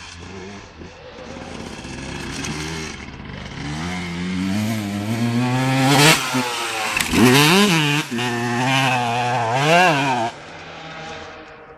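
Motocross dirt bike engine rising in revs as the bike approaches, loudest as it passes close about six seconds in. The revs then jump up and drop back sharply several times with the throttle, and the sound fades as the bike moves away near the end.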